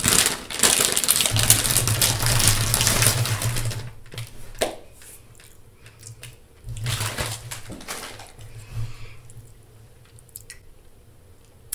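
A foil-lined chip bag crinkles and rustles as it is handled, loudest over the first four seconds. This is followed by quieter, intermittent crunching and chewing of chips, with another short rustle about seven seconds in.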